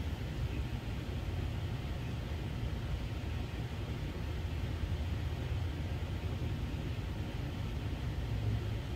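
Steady low background rumble with an even hiss above it, unchanging, with no distinct sounds standing out.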